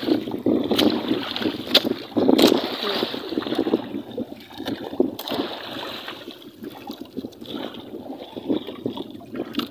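Water washing and splashing against a small fishing boat, with a few sharp knocks on the hull or gear, most of them in the first three seconds.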